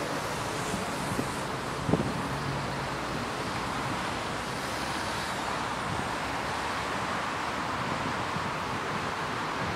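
Steady hum of distant city traffic, an even noise with no distinct events. A single short knock about two seconds in.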